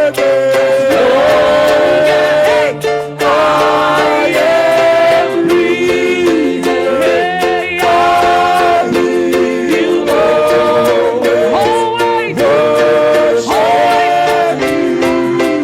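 Live worship music: voices singing long held notes that change every second or two, over a steady instrumental accompaniment with a light plucked rhythm.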